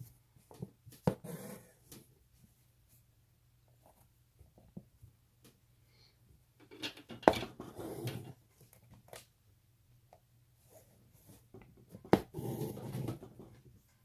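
Embroidery stitching, heard three times about five seconds apart: each time a sharp pop as the needle pierces the taut fabric in the hoop, then about a second of scratchy rasp as the floss is drawn through.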